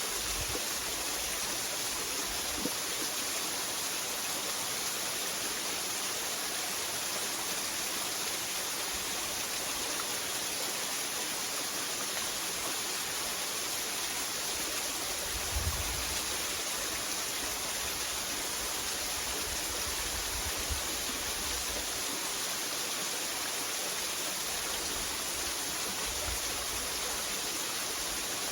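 Waterfall: a steady, even rush of falling water, with a brief low bump about halfway through.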